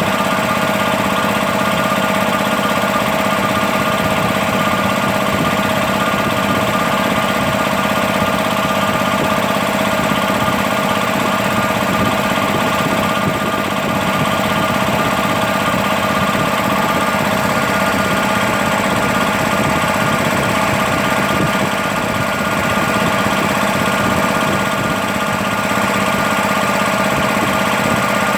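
1990 Bauer air compressor running steadily, an even mechanical hum with a constant whine, as it pumps up an 8-litre tank.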